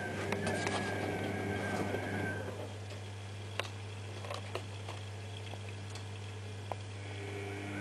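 Privileg Ergonomic 1600 S washing machine running a wash, with a wavering high whistling whine from its damaged drum bearing as the drum turns; the whine stops about two seconds in, leaving a steady low hum and a few sharp clicks.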